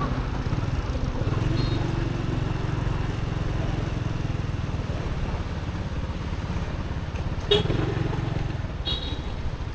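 Riding a motorbike along a road: steady engine and road rumble mixed with wind on the microphone, with one sharp knock about seven and a half seconds in.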